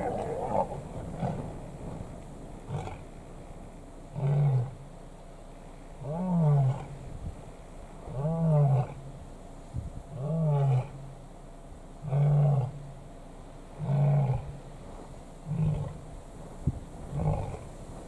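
A lion roaring: a bout of about eight deep calls, roughly one every two seconds, starting about four seconds in. Each call rises and then falls in pitch, and the last few are shorter and fainter.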